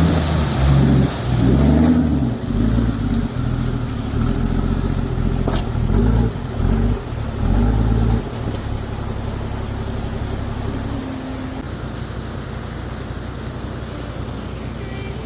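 Toyota Land Cruiser 80 Series diesel engine revving up and down several times, then settling to a steadier, quieter drone about eight seconds in.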